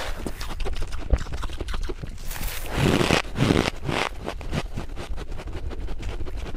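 Freezer frost scraped up with a spoon and crunched in the mouth close to the microphone: a dense run of small crackling crunches, with a louder spell of crunching in the middle.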